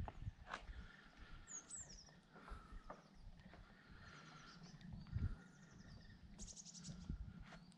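Birds chirping faintly, with short falling calls early on and a rapid trill near the end, over low irregular rumbles and a few clicks.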